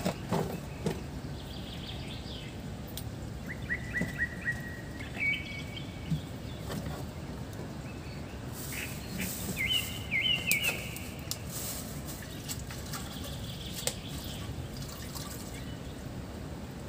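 Birds chirping in short, quick series several times over a steady low outdoor rumble, with small snaps and rustles of vegetable stems being picked apart by hand.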